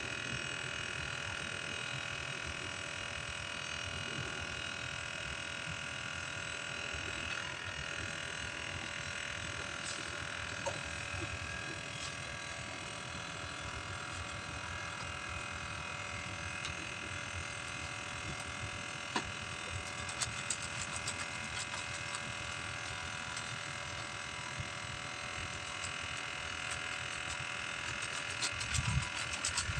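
A motor running steadily with an even, unchanging hum, with a few faint clicks in the second half.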